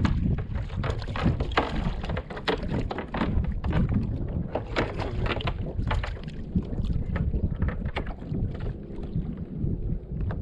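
Wind buffeting the microphone on a kayak at sea, a steady low rumble, with many irregular knocks and taps against the kayak.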